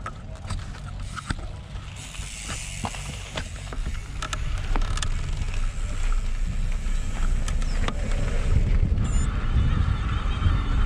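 Mountain bike rolling down a gravel and dirt trail: a low rumble of wind on the microphone and tyres on the track, with scattered clicks and rattles of the bike over stones. The rumble grows louder about six seconds in as speed picks up.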